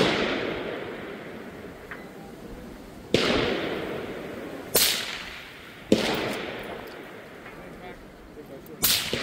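Rifle fire from a suppressed Accuracy International AT-X bolt-action in 6.5 Creedmoor: five sharp shots spaced irregularly, one to three seconds apart, each trailing off in a long echo.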